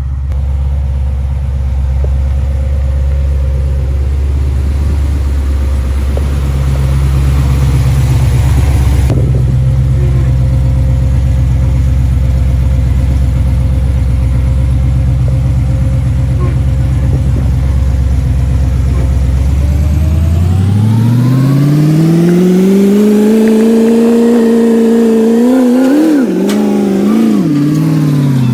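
A car engine idles steadily, then about 20 seconds in it is revved up and held high, with a few quick blips, before dropping back toward idle near the end. A faint high whine rises and falls with the revs.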